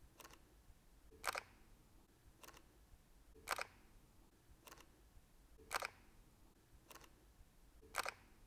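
Fujifilm X-T2 mechanical shutter firing single shots at 1/250 s, heard faintly: eight short clicks about one a second, alternately louder and softer.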